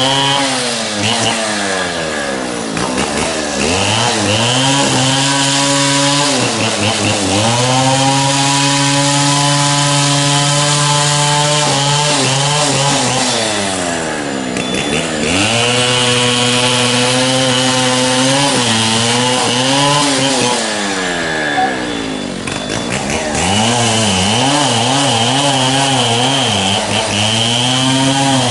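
An engine running hard, its pitch sagging steeply and climbing back several times, with a high whine coming and going.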